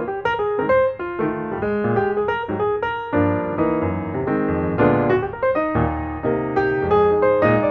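Background piano music: a light melody of quick notes over held chords.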